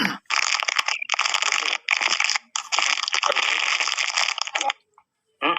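A plastic bag being handled and crumpled close to the microphone: crinkling in four spells with short breaks, then it stops.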